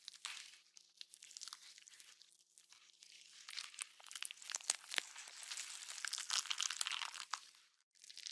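Horror gore sound effect of wet flesh tearing and bones crunching: a dense run of crackles, squelches and sharp snaps. It is sparse at first, thickens about three seconds in, and breaks off briefly near the end before starting again.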